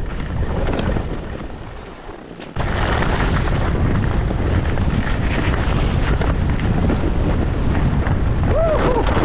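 Strong wind buffeting the action camera's microphone: a loud, low rumbling roar that eases for a moment, then comes back abruptly about two and a half seconds in and stays steady.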